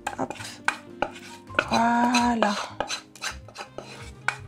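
A kitchen utensil scraping and knocking against a saucepan as the last of the melted chocolate is scraped out into a bowl: a run of short, sharp clicks and taps.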